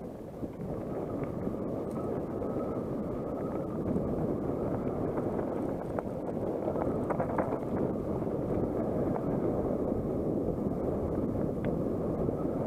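Wind rushing over the microphone of a camera on a mountain bike riding down a dirt singletrack, building up over the first few seconds and then holding steady, with a few sharp clicks and rattles from the bike.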